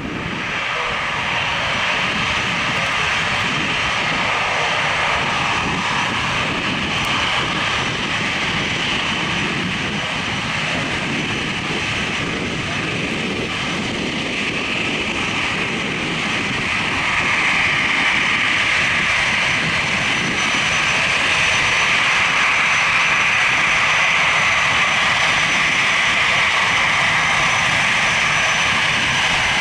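Airbus A340-300's four CFM56 turbofan jet engines running at taxi power: a steady whine over a low rumble. It grows a little louder about 17 seconds in as the jet turns toward the listener.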